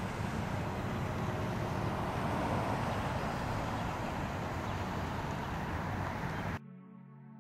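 Steady outdoor rumble and hiss with no distinct events, cutting off abruptly near the end, where soft sustained synthesizer music begins.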